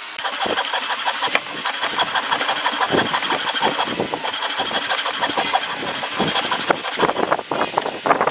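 An engine running, with uneven knocking and a steady high whine coming and going over it; it starts abruptly at the outset.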